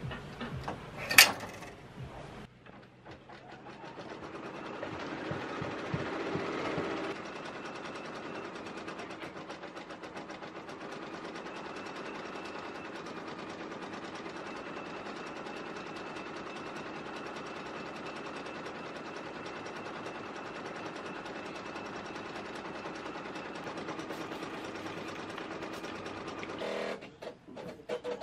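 A sharp click about a second in, then an embroidery machine stitching at a fast, steady, even pace until it stops near the end.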